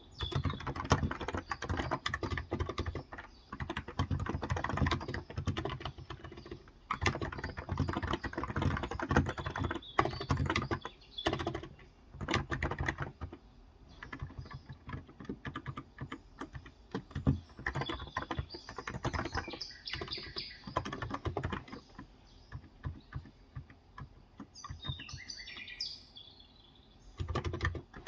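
Typing on a Cox Endeavour electrostatic-capacitive 35 g tenkeyless keyboard: quick runs of keystrokes with short pauses. Birds chirp in the background, most clearly near the end.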